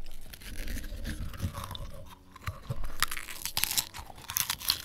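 Popcorn being chewed and crunched close to the microphones, scattered crunches at first, then many sharp crunches in quick succession through the second half.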